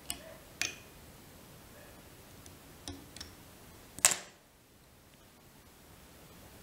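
A handful of small, sharp metallic clicks from fly-tying tools at the vise as a whip-finish knot is finished off and the thread is cut, the loudest a crisp snip about four seconds in.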